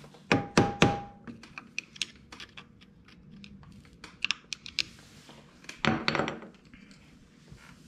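Screwdriver working against a steel lock washer on an ATV clutch nut, prying its locking tabs out of the way. Two sharp metal knocks in the first second, one ringing briefly, then light scattered clicks and scrapes, with a louder run of clicks about six seconds in.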